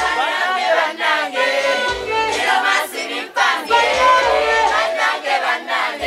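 Live Ugandan pop performance: several voices singing over a backing track, with the bass line dropping in and out.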